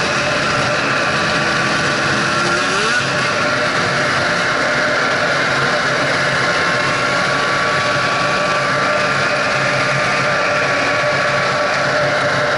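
Snowmobile engine running steadily while under way on a snow trail, with a brief rise in pitch about three seconds in.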